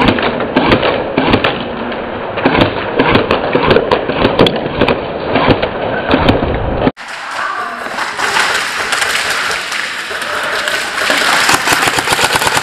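Airsoft game clatter: irregular rapid clicks and knocks of airsoft fire, BB hits and movement. It is muffled at first, then cuts abruptly about seven seconds in to a brighter, hissing clatter.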